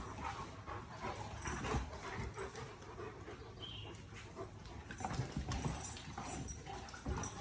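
Dogs moving about, with irregular thuds and scuffling and a brief high whine about halfway through.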